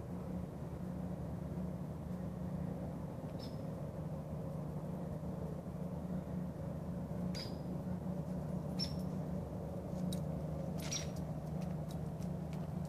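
Outdoor dawn ambience: a steady low hum, with a few short, high chirps, about four, spread through it.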